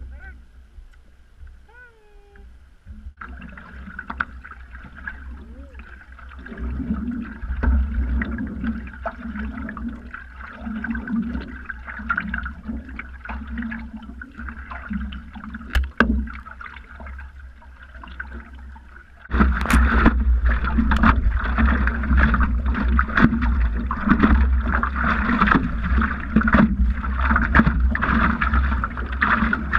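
Water and wind noise from out on a stand-up paddleboard: a steady rumble and splashing haze with small knocks, quiet for the first few seconds and stepping up much louder about two-thirds of the way through.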